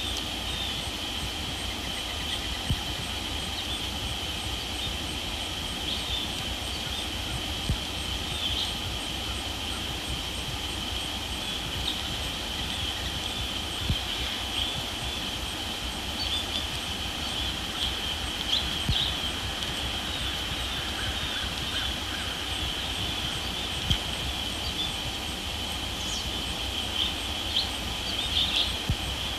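Outdoor pond ambience: a steady high-pitched drone over a low rumble, with scattered short clicks and chirps, a few together near the end.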